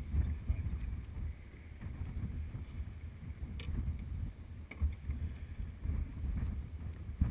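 Wind buffeting the camera microphone in a gusty low rumble, with choppy water around a small fishing boat and a couple of faint ticks about halfway through.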